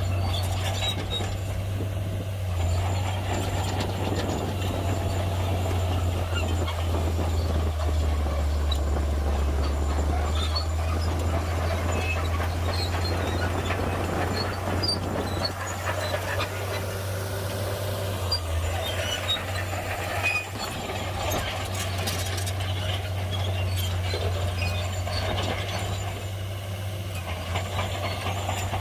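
Shantui bulldozer's diesel engine running steadily at work: a continuous low drone, with faint scattered higher squeaks and clinks over it.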